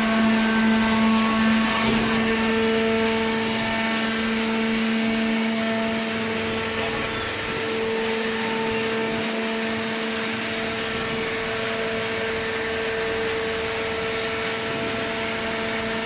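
Automatic horizontal hydraulic paper baler running: a steady machine hum held at one constant pitch with overtones, over a bed of plant noise, slightly louder in the first few seconds.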